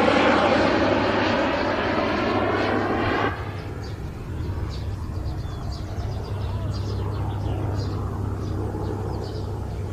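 A propeller aircraft passing close, loud and wavering. About three seconds in it drops abruptly to a quieter, steady drone with a low hum.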